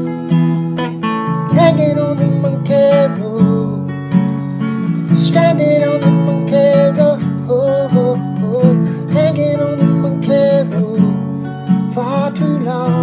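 Instrumental break of an acoustic song: an acoustic guitar strummed steadily, with a melody line played over the chords.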